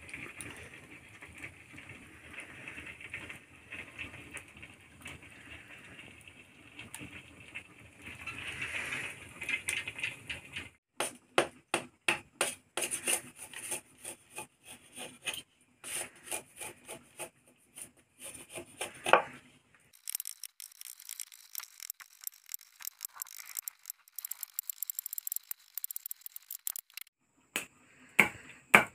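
Wood fire crackling and hissing softly for about the first ten seconds. Then a long run of scraping and rubbing clicks as charred bamboo cooking tubes are handled and wiped, with one loud knock a little past halfway. Near the end, a few sharp chops of a machete blade into a bamboo tube.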